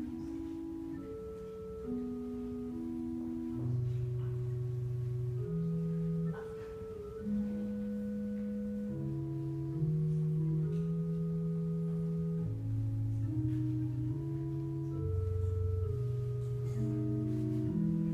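Slow instrumental music of long held chords over a slowly moving bass line.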